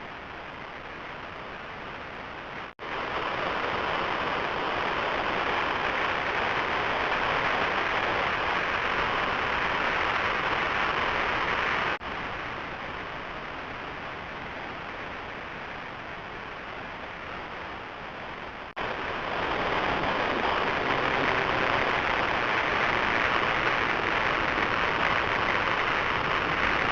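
Hissing noise effect from a 4ormulator audio effects unit, a steady rain-like hiss with no pitch. It jumps louder about three seconds in, drops back partway through, and jumps louder again about two-thirds of the way through.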